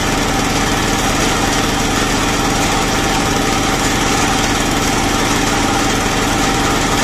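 Small stationary engine running steadily, driving a water-well drilling rig through V-belts and pulleys.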